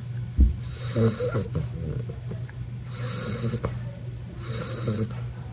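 Snoring: three rough snores about a second and a half apart, each with a hissy breath. A low bump comes just before the first snore, and a steady low hum runs underneath.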